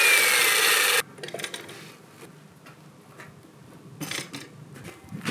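Electric chain mortiser cutting into an oak beam, running loud with a whine that slowly falls in pitch, then stopping abruptly about a second in. After that come only faint knocks and shuffling as the tool is handled, with a brief louder scrape about four seconds in.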